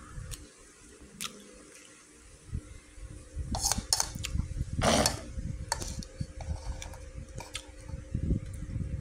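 Metal spoon clinking and scraping against a ceramic rice bowl: a few scattered sharp clinks, the loudest about five seconds in.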